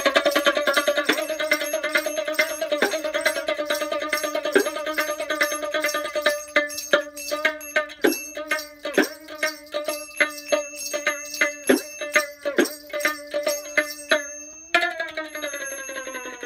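Baul folk music played live: a plucked string instrument struck in a steady rhythm over a held drone, with small bells or a rattle. About six seconds in, the strokes stand out separately, roughly one or two a second. Near the end the pitch slides steadily downward.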